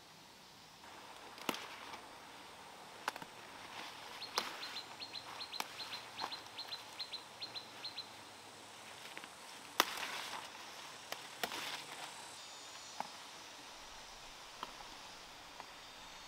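Plant stems snapping and leaves rustling as a garden crop is picked by hand, a dozen or so sharp snaps spread out, the loudest about ten seconds in. A bird chirps a quick run of about a dozen short high notes partway through.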